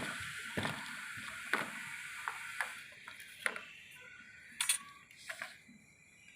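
Water running through a plumbing line, with a steady hiss that dies away about three seconds in, and scattered light clicks and knocks, about six in all.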